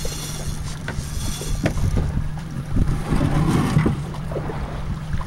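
Wind buffeting the microphone and water sloshing around a boat, over a steady low hum.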